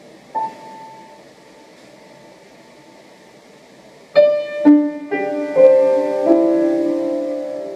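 Solo piano: one note struck about half a second in and left to ring. After a pause of about three seconds, some five notes are struck about half a second apart and held, ringing on together and slowly fading.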